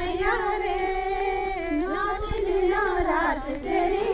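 A group of women singing a devotional song together in long, wavering held notes.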